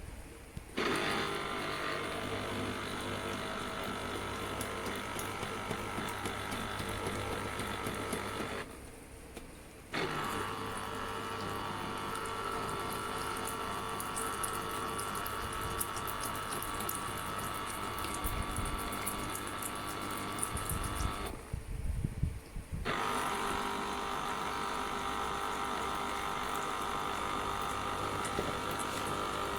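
Electric citrus juicer's motor running steadily while lemon halves are pressed on it, in three long stretches broken by two short stops of a second or two.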